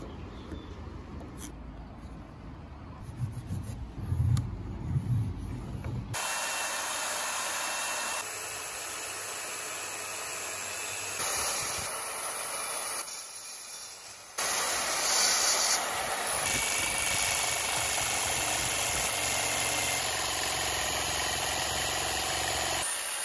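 A few knocks of wooden blocks being handled, then an electric circular saw running and cutting through a wooden board. After a short drop, a jigsaw cuts wood with a steady, loud noise.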